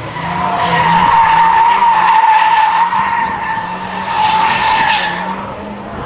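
Drift car sliding sideways through a corner, its rear tyres squealing in one long, steady high screech over the running engine. The screech eases off near the end.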